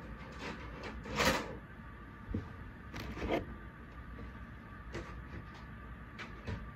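Steady low hum and hiss with a few scattered soft knocks and rustles; the loudest is a short scuff about a second in.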